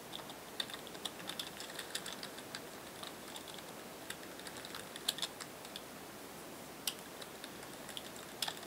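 Computer keyboard keys clicking as code is typed: a quick run of keystrokes in the first few seconds, then a few single clicks spaced well apart.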